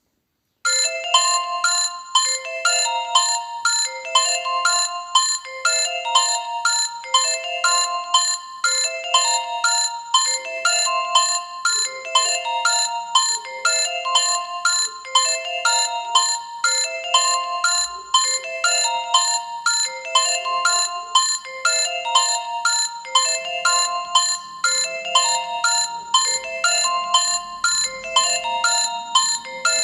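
A Nokia 1110 ringtone: a short synthesized melody phrase repeated over and over at a steady pace, starting about a second in after a brief silence.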